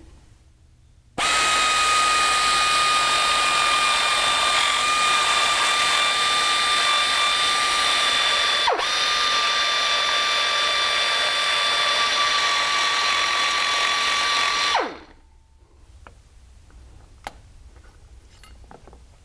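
Hand-held rotary tool with a small abrasive cut-off wheel grinding the peened-over studs off a steel mirror back plate, to open up the worn ball-and-socket joint. It starts about a second in with a steady high whine and grinding noise, dips for a moment about halfway, then spins down and stops about four seconds before the end. Light handling clicks follow.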